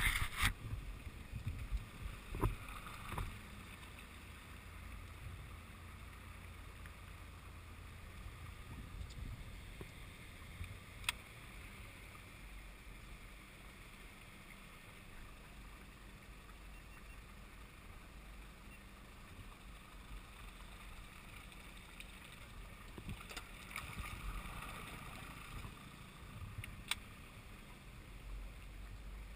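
Aluminium rescue boat moving slowly through floodwater: a faint, steady low rumble with light water and wind noise. There are knocks and splashing in the first few seconds and a single sharp click about eleven seconds in.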